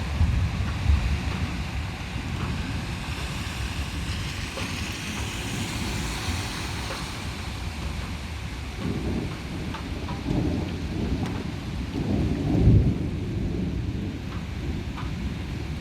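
Thunder rumbling through a heavy downpour. The hiss of rain swells a few seconds in, and several low rolls of thunder follow in the second half, the loudest near the end.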